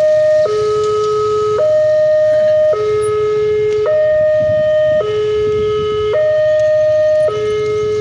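Railway level-crossing warning siren sounding a two-tone hi-lo alarm, switching between a higher and a lower tone about once a second, the signal that a train is approaching and the barriers are down.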